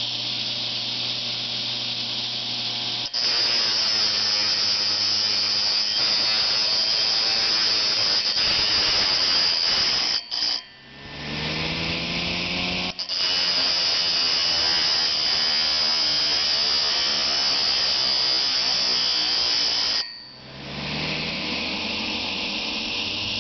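An opened hard drive spins a bare platter while a piece of wood is pressed against it, making a loud, steady, high scraping hiss as the wood's edge is ground away. Twice the sound cuts out briefly, and the drive spins back up with a rising whine.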